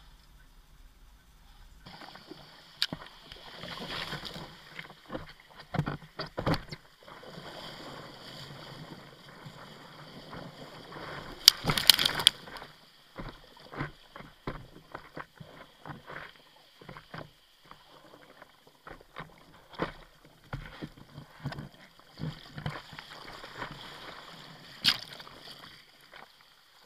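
Water splashing and sloshing around a bodyboard as the rider paddles through surf, with irregular knocks and splashes. It starts after a quiet first couple of seconds, and the loudest burst comes about halfway through.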